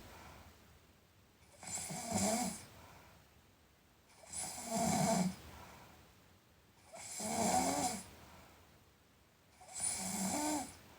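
A sleeping person snoring: four snores, each about a second long, coming about every two and a half to three seconds with quiet between them.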